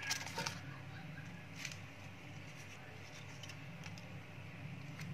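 Faint rustling and a few light taps as daun salam (Indonesian bay) leaves are laid by hand over fish in a pressure-cooker pot. Under them runs a steady low hum.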